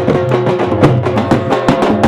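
Live folk dance music: a drum beaten in fast, even strokes, about five or six a second, with a steady held tone sounding underneath.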